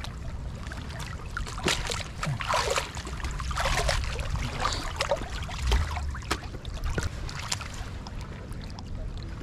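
Shallow seawater splashing and sloshing as a landing net is dragged and lifted through it, with scattered knocks and clicks of wading feet and handling. A steady low rumble runs underneath.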